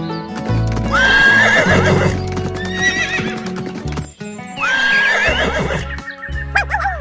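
Horse whinnying twice, about a second in and again just before five seconds, each call rising sharply then wavering down, with clip-clop of hooves, over background music with a steady beat.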